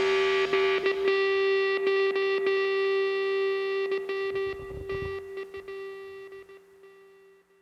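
Rock music ending on a held, distorted electric guitar chord that rings and slowly fades out.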